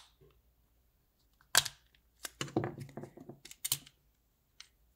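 Plastic shell of a Nissan Altima key fob being pried apart with a small flathead screwdriver: a sharp snap about one and a half seconds in as the clips let go, then a run of clicks and scraping as the two halves come apart.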